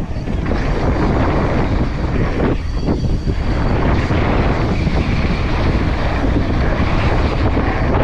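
Wind buffeting the microphone in a steady loud rush, as on a fast mountain-bike run.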